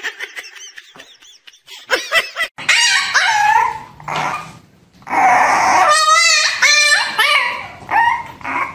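A French bulldog puppy in a wire cage barking and whining in a run of high yaps and wavering cries, which get loud about halfway through.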